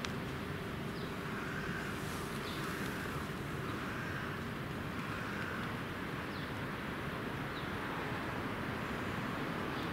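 Steady outdoor background rumble at an even level, with a few faint short chirps in the first half.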